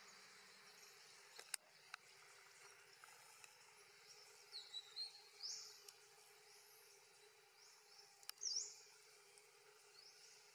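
Faint outdoor ambience with short, high-pitched bird chirps every second or two, the loudest about halfway through and again near the end, and two soft clicks about one and a half seconds in.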